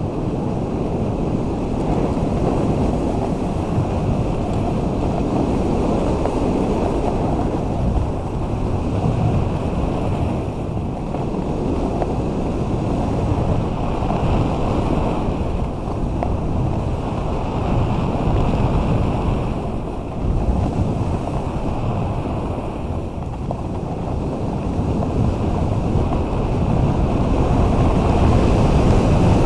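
Wind buffeting the microphone of a snowboarder's body-mounted camera, mixed with the rush and scrape of the board sliding over packed snow during a steady descent.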